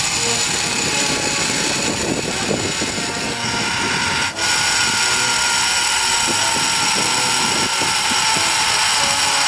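Zipline trolley pulleys running along the steel cable: a steady mechanical whine over rushing wind noise, with a brief dip about four seconds in.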